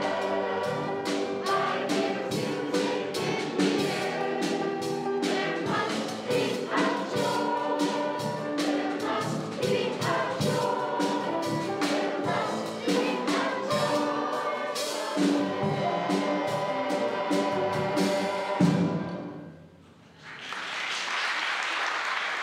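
Church choir of adults and children singing with accompaniment and a steady beat, ending on a final chord about nineteen seconds in. The congregation then applauds.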